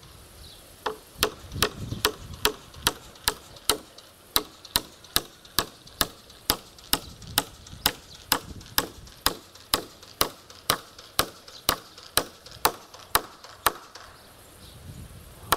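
Hammer blows on a reused rusty nail in a wooden swing-frame pole: a steady run of sharp strikes, about two a second, that stops shortly before the end.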